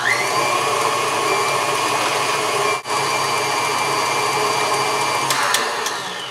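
Electric stand mixer with a wire whisk attachment whipping a creamy batter in a stainless steel bowl. The motor's whine rises as it speeds up right at the start, holds steady with a brief dip about halfway, then falls away near the end as it slows down.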